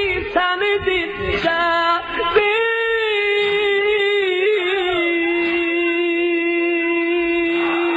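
A single voice singing a devotional song. It runs through quick ornamented turns for the first couple of seconds, then holds one long note that steps slightly lower about halfway through.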